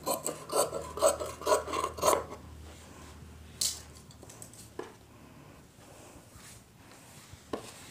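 Tailor's scissors snipping through blouse fabric along a curved neckline, about three snips a second for the first two seconds or so. Then a single sharp click and the soft rustle of the cloth being lifted and unfolded.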